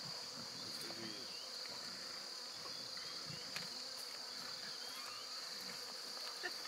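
Steady high-pitched chorus of crickets singing at night, with a single faint click about three and a half seconds in.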